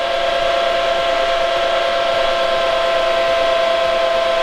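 Cooling fans of a running IBM System x3950 rack server: a loud, steady whir with several steady whining tones over it. The fans are still at the raised speed the server runs them at with one power supply failed, which makes it a lot noisier.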